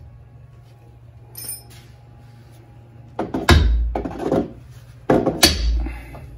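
Dead-blow hammer striking the end of a 17 mm combination wrench to break loose a stuck front strut nut: about five hard knocks with a heavy thud and a metallic ring, beginning about three seconds in. A light metallic clink comes a second and a half in.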